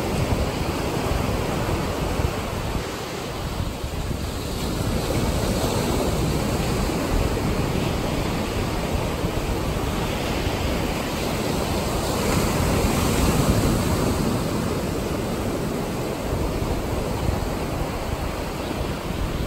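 Ocean surf: small waves breaking and washing up the sand in a steady rush, swelling louder about two-thirds of the way through.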